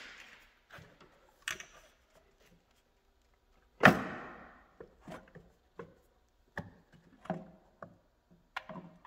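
Knocks and clunks of a snowmobile's cast metal chaincase cover being worked loose by hand and pulled off the chaincase, with one sharp, loud knock about four seconds in that rings briefly.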